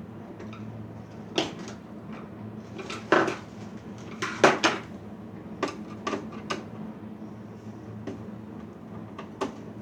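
Metal parts and tools of a server chassis clinking and knocking as it is taken apart: a string of sharp clacks, loudest about three and four and a half seconds in, over a steady low hum.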